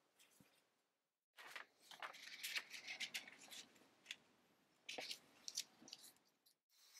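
Thin paper rustling and crinkling as a sheet with a pencil drawing is handled and laid flat over a plate. It comes in two crackly spells, the longer one from about a second and a half in and a shorter one near the end.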